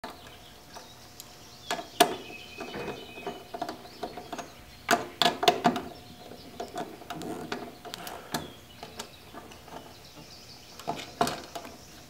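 Screwdriver and wire ends clicking and scraping against the terminal screws of a garage door opener as the wires are fastened: scattered sharp clicks, with a quick run of them about five seconds in.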